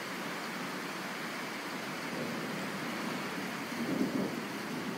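Steady hiss of rain, with a brief low swell about four seconds in.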